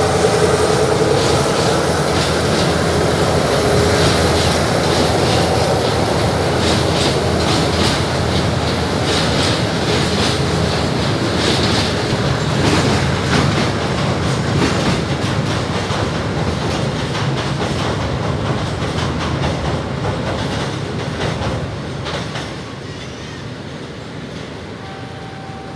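Stone-hauling freight train rolling past, its wagon wheels clicking steadily over the rail joints with some wheel squeal over a continuous rumble. The sound drops off over the last few seconds.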